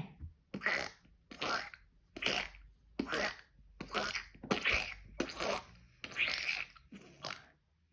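A person making a series of about nine short, breathy mouth noises, roughly one a second, each a sharp puff with no words.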